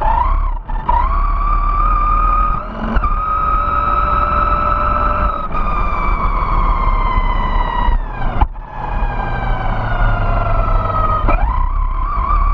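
Vaterra Glamis Uno RC buggy's electric motor whining at speed, its pitch rising and falling with the throttle and sliding slowly down through the middle. The whine drops out briefly three times, about half a second, three seconds and eight and a half seconds in, when the throttle is let off. Low tyre rumble on asphalt runs underneath.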